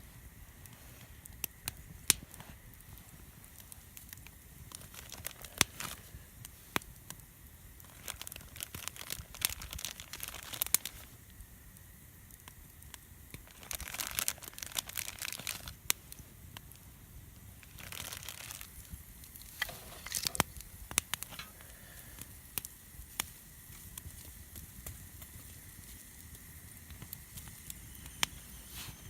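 Wood campfire crackling with scattered sharp pops, mixed with several stretches of crinkling and rustling.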